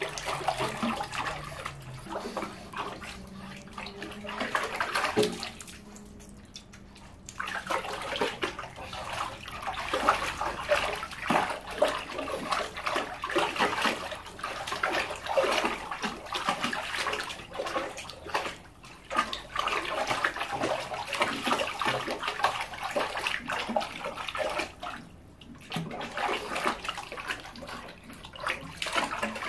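A pug splashing and sloshing water in a small portable dog pool as it paws about after its ball, in irregular splashes that pause briefly twice.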